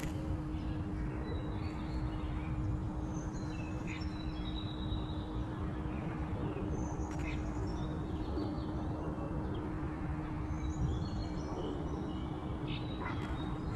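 Scattered short, high bird chirps over a steady low background rumble, with a constant low hum underneath.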